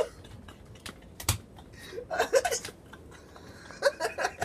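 Soft laughter and brief voice sounds from two young men, with a couple of sharp clicks about a second in.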